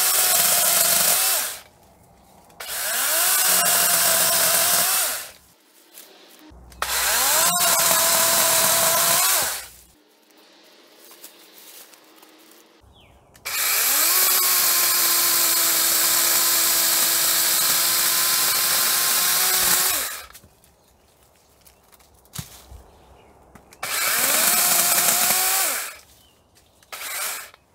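DeWalt 20V MAX XR cordless battery chainsaw cutting through the woody stems of a small shrub at its base. It runs in about six bursts: the electric motor whines up to speed, holds a steady pitch through the cut, and winds down when the trigger is released. The longest run, about six seconds, comes midway.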